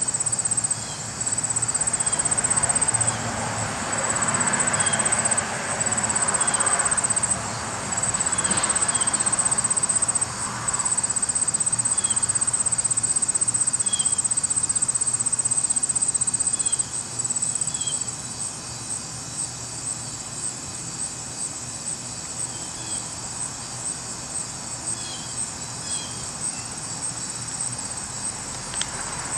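Insects trilling, a steady high-pitched buzz that drops softer and breaks into quick pulses about 17 seconds in.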